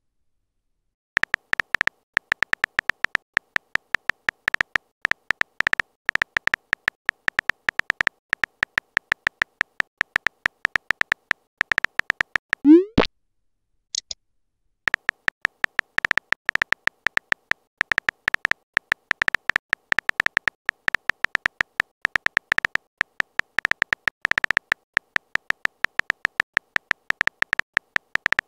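Phone-keyboard typing sound effect: rapid short, high-pitched ticks, several a second, as a chat message is typed. About 13 seconds in they stop for a short rising pop, the message-sent sound, then the ticking starts again.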